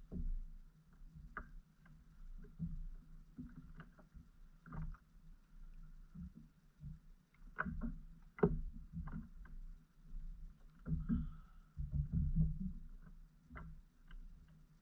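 Irregular knocks, taps and clunks of fishing gear being handled against a kayak's hull, some sharper and louder than others, with a busier cluster about two thirds of the way through.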